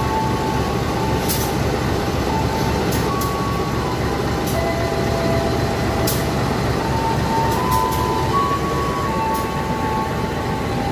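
Diesel engine of a GE CC203 diesel-electric locomotive running steadily while the locomotive stands at the platform.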